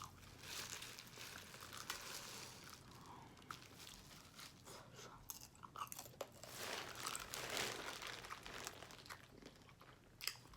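A person chewing crab close to the microphone, with sharp clicks and crackles of crab shell being cracked and picked apart. The crunching is heaviest about six to eight seconds in.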